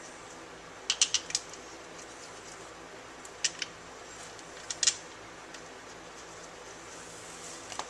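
Sharp metallic clicks and clinks of hand tools and steel bolts being handled while a transmission side cover is bolted on. They come in three short clusters: several together about a second in, two at about three and a half seconds, and a few more near five seconds.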